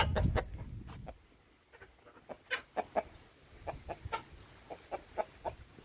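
Domestic hens clucking in a string of short, separate calls, after a low rumble that fades out in the first second.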